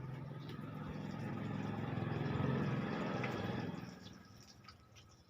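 A motor vehicle passing by: a low, steady engine sound grows louder toward the middle, then fades away about four seconds in.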